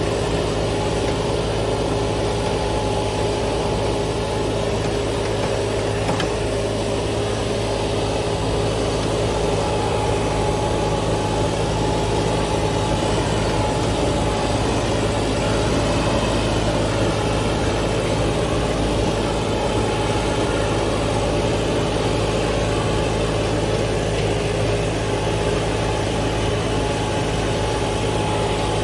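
John Deere 5075E tractor's diesel engine running steadily at constant revs, working a tractor-mounted grader, with a steady humming tone over the engine note.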